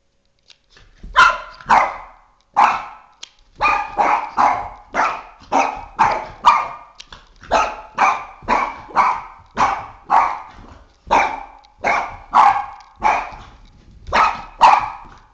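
Boston terrier barking over and over at a flashlight spot on the floor: a fast, steady run of sharp barks, about two a second, starting about a second in.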